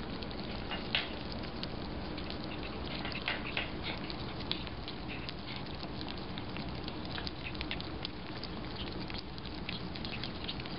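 Ferrets lapping duck soup from a bowl: many quick, irregular wet clicks of tongues in the liquid.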